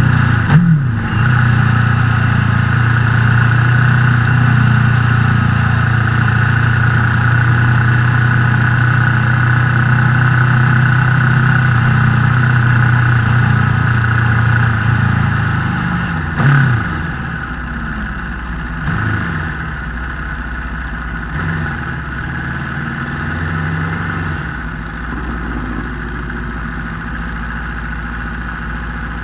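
Aprilia Tuono V4 motorcycle's V4 engine heard onboard, running at steady revs for about fifteen seconds with a sharp rev blip just after the start, then another blip about halfway as it drops to lower, quieter revs with a few small throttle blips.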